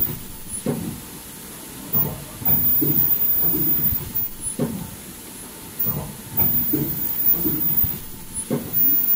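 N95 folding-mask production line running, its machine cycle repeating about every two seconds with air hiss and knocks, over a thin, very high-pitched whine that breaks off every couple of seconds.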